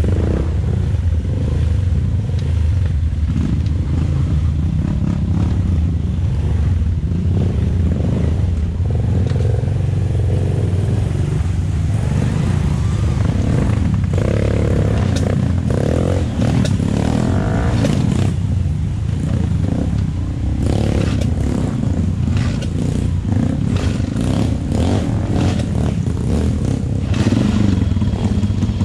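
Trail motorcycle engine idling steadily, with scattered clicks and clatter in the second half.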